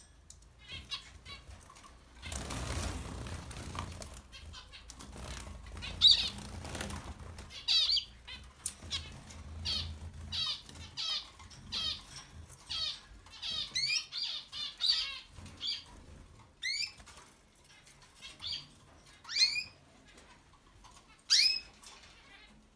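Small cage birds, canaries and finches, in wire cages: a few seconds in a rush of wing fluttering, then a long run of short, high chirps repeated over and over, with a few quick rising calls near the end.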